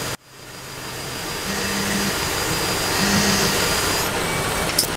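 Tormach PCNC 1100 CNC mill spindle running a quarter-inch four-flute carbide end mill at 2700 rpm, milling a 4140 steel bar on the 4th axis, over a steady hiss of mist coolant air. The sound drops out just after the start and fades back in, then cuts off suddenly at the end.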